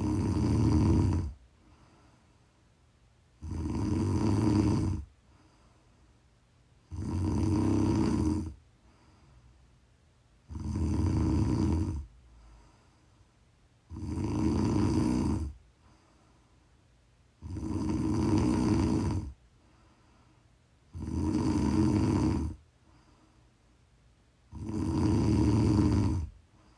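A person snoring in slow, very regular cycles: eight snores, each lasting about a second and a half, one about every three and a half seconds, with quiet gaps between them.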